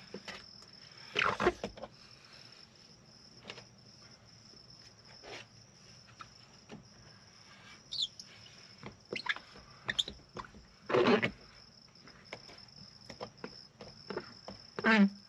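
A hand squeegee working wet tint film against a truck's side window glass makes a few short scrapes and squeaks, with small taps between them. A steady high-pitched insect drone runs behind.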